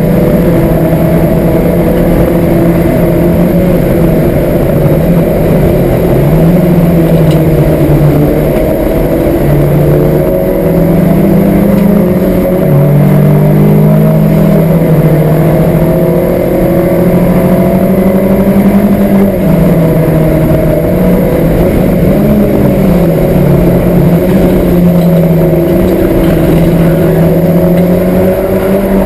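Citroen Saxo's four-cylinder petrol engine, with a Pipercross air filter and a four-branch exhaust manifold, heard from inside the cabin while lapping a race circuit. It is pulled hard, so the engine note climbs and then drops again and again as it revs up and changes gear.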